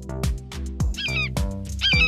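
Background music with a steady kick-drum beat, with two short animal calls that bend in pitch, about one second in and again near the end.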